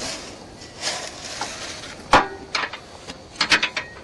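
Metal knocks and clinks: one sharp, loud knock about two seconds in, then a quick cluster of lighter clinks and knocks near the end, some with a brief ring, over a hiss in the first second.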